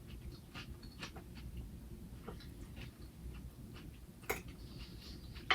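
Chewing of crunchy raw salad: irregular crisp crunches and clicks, with a sharper click about four seconds in.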